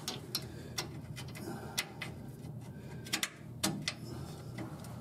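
Scattered light clicks and knocks of parts being handled while a new polyurethane sway bar bushing and its bracket are fitted, about six sharp taps spread over a few seconds.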